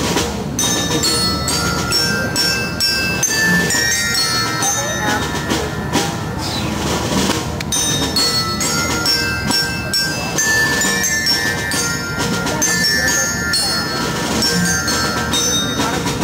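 Street percussion group playing struck chimes and bells in a quick, ringing melody, with hand drums beneath.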